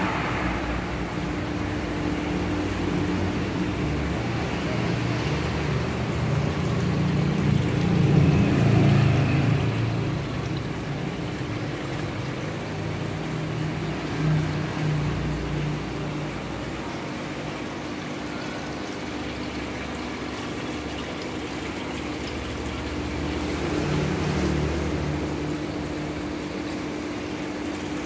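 Steady hum of an aquarium tank's water pump with the wash of circulating water, swelling louder for a few seconds about a third of the way in.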